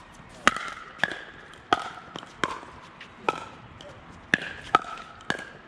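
Pickleball rally: the sharp pops of paddles hitting the hollow plastic ball, each with a short ring, about eight in quick succession at uneven half-second to one-second spacing.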